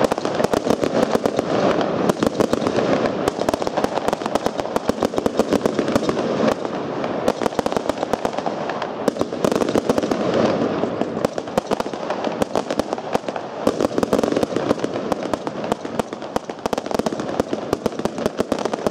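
Sweetlake Thunder consumer fireworks cake firing: a rapid, unbroken run of shot launches and cracking bursts.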